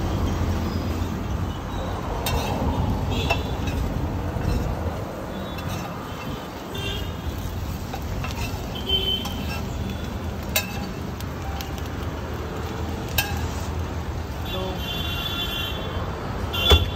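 Street ambience: a steady rumble of road traffic with a few sharp metallic clinks scattered through, and a short horn toot near the end.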